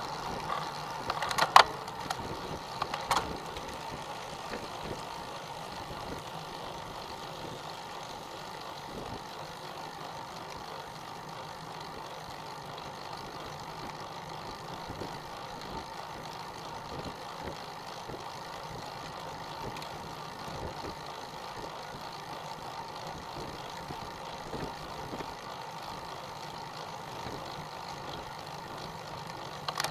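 Steady rolling and wind noise of a road bike on asphalt, heard through a bike-mounted camera, with a few sharp clicks or knocks about one and a half and three seconds in.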